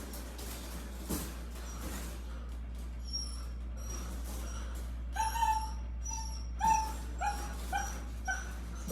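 A dog whimpering: a run of about six short, high whines, starting about five seconds in, with fainter ones before.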